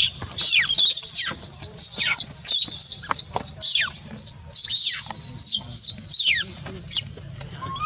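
Baby macaque giving distress screams: repeated high-pitched cries, about two a second, each falling sharply in pitch.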